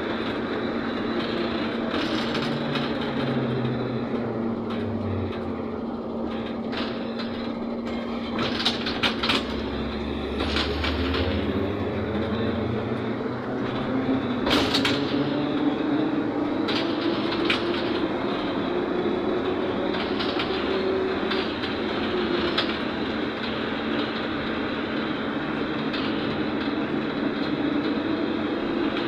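Cabin sound of a ZiU-682G trolleybus under way: a traction motor whine that slowly rises and then falls in pitch with speed, over a steady hum and road noise, with a few brief knocks and rattles from the body.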